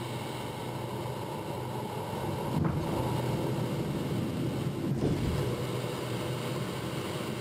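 Steady noise of a Rafale's twin M88 turbofans and rushing air heard inside the cockpit as the jet is catapulted off the carrier deck and climbs away, growing a little louder about two and a half seconds in.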